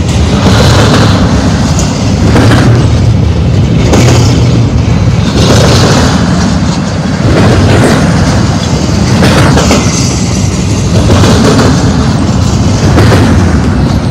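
Double-stack intermodal freight train's well cars rolling past close by: a loud, steady rumble of steel wheels on rail that swells every second or two as the wheel sets go by, loud enough to overload the microphone.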